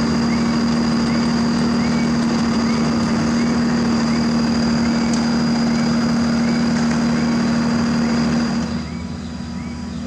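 Diesel engines of an asphalt paver and a tipping dump truck running steadily, a heavy hum with a thin high whine over it, while the truck unloads asphalt mix into the paver's hopper. The engine noise drops to a lower level about nine seconds in. A faint chirp repeats about twice a second.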